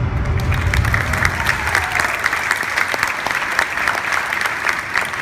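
Theatre audience applauding, a dense patter of many hands clapping, as the show music fades out in the first couple of seconds.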